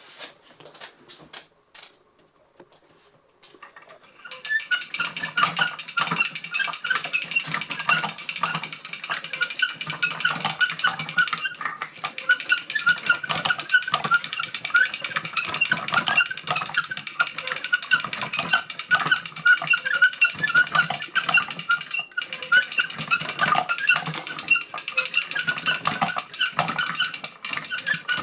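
Wooden automaton's pulley-and-cam mechanism running, a dense, continuous clatter of small wooden clicks and squeaks. It starts about four seconds in, after a few scattered knocks.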